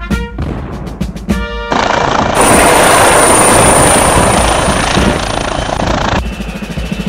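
Brass-and-drum intro music, broken about two seconds in by a loud helicopter sound effect: a steady rushing noise with a thin high whine over it. It falls away about six seconds in as the music comes back.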